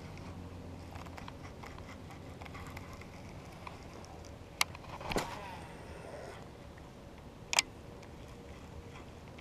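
Baitcasting reel worked during a cast: faint handling clicks, a sharp click, a brief whir of the spool paying out line whose pitch falls as it slows, then another sharp click about three seconds after the first as the reel is engaged for the retrieve.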